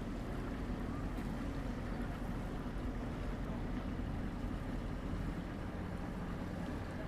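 A boat engine running steadily: a low hum over an even hiss.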